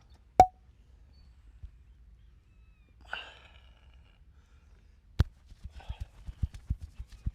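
Massage sounds: two sharp cracks, the first about half a second in and the second about five seconds in, then a run of quick low hand pats, roughly five a second, through the end. A brief rasping sound comes about three seconds in.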